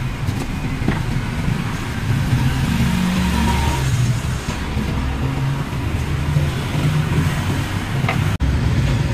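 Street traffic: a steady low rumble of engines from cars and motorbikes.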